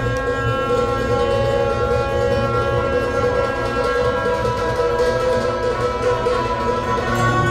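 Tibetan Buddhist ritual music: long, sustained horn-like tones held over a constant low drone.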